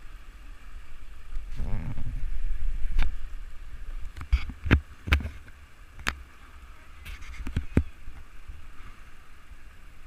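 Sharp knocks and bumps aboard an inflatable raft, about seven scattered over several seconds, after a low rumble, with the steady hiss of river water behind.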